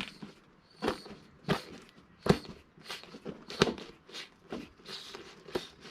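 Tubeless mountain bike tyre bead being pushed off its seat on the rim by hand: a string of sharp snaps and clicks, a little more than one a second, as the bead unseats around the rim.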